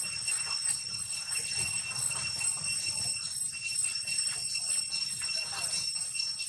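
Outdoor ambience dominated by a steady high-pitched insect drone, with scattered soft rustling.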